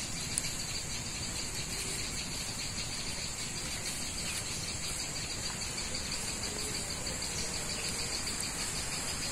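A steady chorus of crickets or similar insects: several high-pitched trills held at a constant pitch, unbroken throughout.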